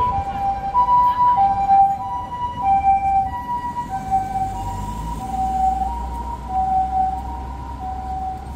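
Japanese ambulance siren sounding its two-tone hi-lo pattern, a higher and a lower tone taking turns about every half second, slowly growing fainter. A low vehicle rumble joins about halfway through.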